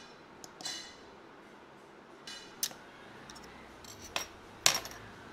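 Metal-on-metal clinks and taps as a steel flat bar and a small bolted sheet-metal clamp are handled together: several separate sharp clinks with brief ringing, the loudest near the end.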